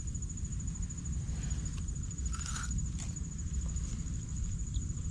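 A steady high insect trill runs throughout over a low rumble. About two and a half seconds in comes a short crunch as a small crab apple is bitten into.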